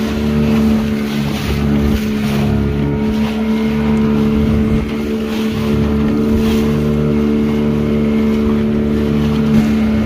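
Motorboat engine running at a steady speed, a constant hum with a rumble that swells and fades, with wind on the microphone.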